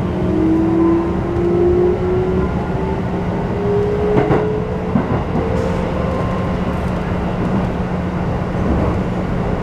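Keikyu New 1000 series train's Toyo IGBT-VVVF inverter and traction motors whining, the tone rising steadily in pitch as the train accelerates, heard inside the passenger car over the wheel and rail rumble. A single knock from the running gear comes about four seconds in.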